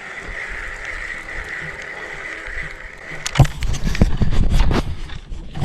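Action camera being handled: a steady faint hiss with a thin high hum, then from about three seconds in, loud rubbing rumble and several sharp knocks and bumps against the camera.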